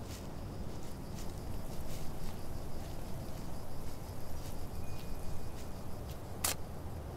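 Footsteps crunching on dry fallen leaves and grass, a few irregular steps over steady low outdoor background noise, with one sharper crunch near the end.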